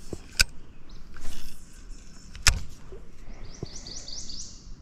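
Sharp clicks and handling knocks, the loudest about two and a half seconds in, then a spinning reel's handle cranked briefly near the end, a run of quick rising whirrs.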